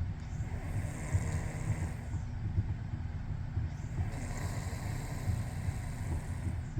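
A person snoring in sleep: a coarse low rumble with a rasp that swells and fades about every four seconds, with each breath.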